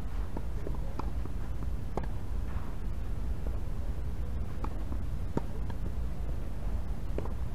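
Scattered light knocks and taps from play on a tennis court, a few seconds apart and irregular, over a steady low rumble.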